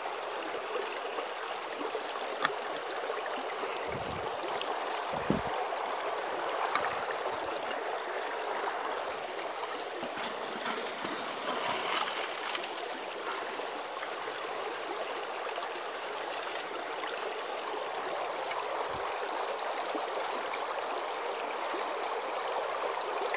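Creek water rushing steadily through a sluice box and over its riffles, with a few light clicks in the first several seconds.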